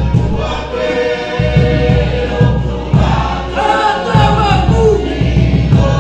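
A Cook Islands dance song: many voices singing together over steady rhythmic drumming.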